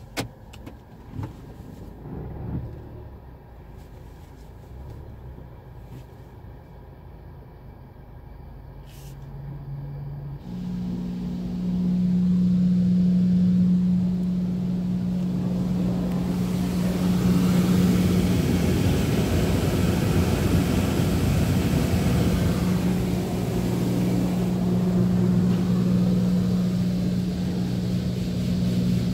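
PDQ Tandem Surfline touchless car wash heard from inside the car: a steady machine hum starts about a third of the way in, and soon after, water spray hits the car's body and windows as a loud, steady hiss.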